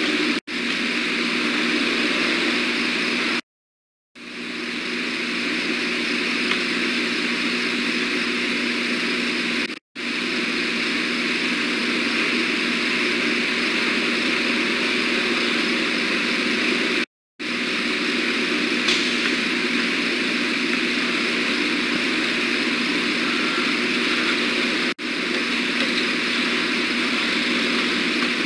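Steady drone of nearby vehicle engines and road traffic, with a low engine hum, cutting out briefly several times.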